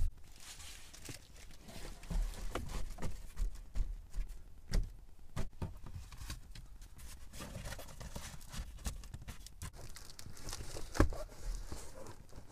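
Faint rustling and scattered soft knocks from someone moving about inside a car and handling the camera as it is repositioned.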